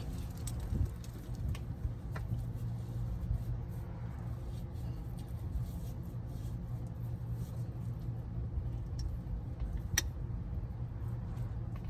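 A steady low hum with scattered light clicks, and one sharper click about ten seconds in: hand tools being worked during an oil change.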